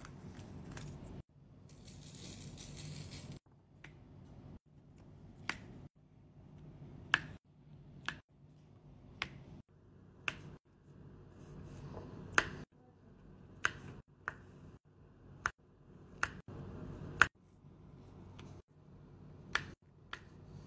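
Diamond-painting drill pen pressing square resin drills onto the sticky canvas, making sharp clicks about once a second. Near the start there is a brief crinkly rustle of the canvas's protective film being peeled back.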